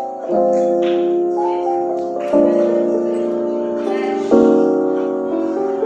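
Background music: soft piano-like keyboard chords, a new chord struck about every two seconds.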